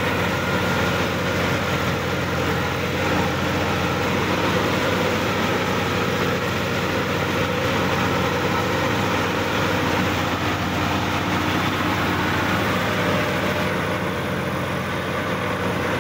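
Sonalika DI-50 RX tractor's diesel engine running steadily at an even speed while the tractor drives through a flooded paddy field, heard from the driver's seat.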